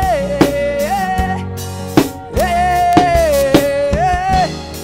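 Live Afropop band playing: a drum kit beat with a long held melody line that slides between two notes.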